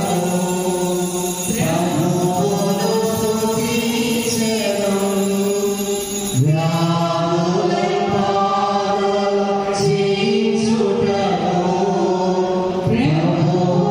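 A group of voices singing a devotional hymn together in long held notes, each phrase lasting several seconds before the next begins.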